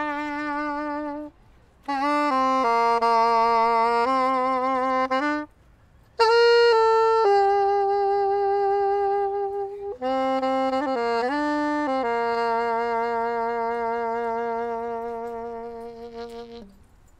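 Solo saxophone played live, in four melodic phrases with brief breath pauses between them. The last phrase ends on a long held note with vibrato that fades away near the end.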